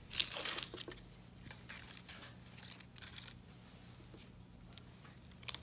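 Paper wrapper of an adhesive bandage being torn open and its paper backing peeled off, in short crinkling, tearing rustles, the loudest in the first second and fainter ones after.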